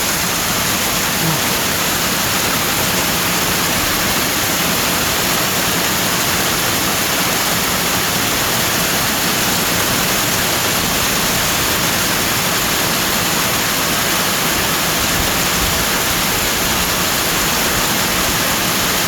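Heavy rain pouring down steadily, mixed with the rush of storm runoff flowing in a flood across the road.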